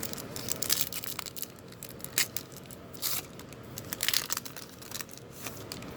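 Foil trading-card pack wrappers crinkling and tearing as packs are ripped open by hand, in irregular crackles and rustles.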